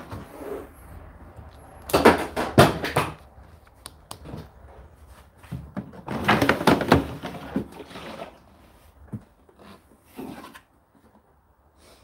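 Hard-plastic clunks and rattles as the condensed-water container of an Indesit condenser tumble dryer is handled and pulled out of its drawer, in two loud bursts of knocks about two seconds in and again around six to seven seconds, with a few lighter knocks near ten seconds.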